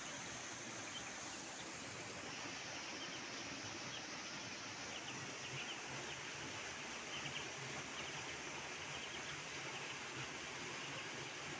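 Steady outdoor background noise with a constant high hiss, and faint short bird chirps repeating every so often.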